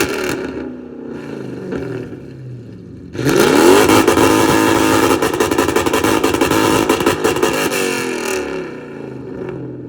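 Straight-piped Lexus GS400's 1UZ V8 being revved with the car parked. The revs fall away over the first few seconds, then a sharp rise about three seconds in, held steady high for several seconds before dropping back near the end.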